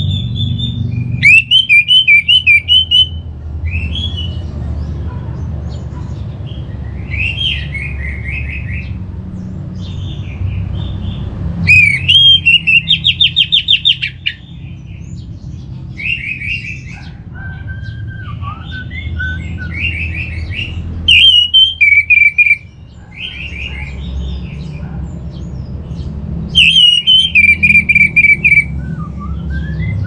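Orange-headed thrush singing a varied song of short whistled phrases, with four loud stretches of fast repeated notes, over a steady low background rumble.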